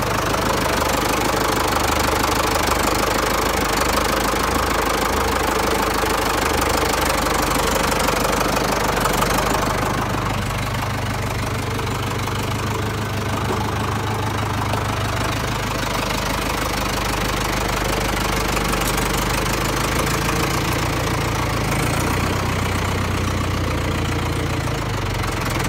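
Tractor's diesel engine running steadily as the tractor drives along a forest track, a little louder for the first ten seconds or so.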